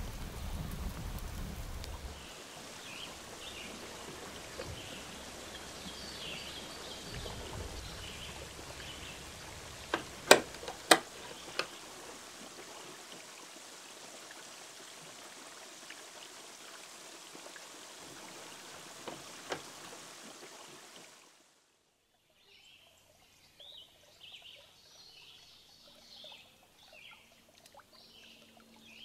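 Wood fire crackling in a stove for the first two seconds. Then a steady trickle of running water with short bird chirps, broken by a few sharp clicks about ten seconds in and twice more near twenty seconds. After a sudden near-silent gap, faint bird chirps return.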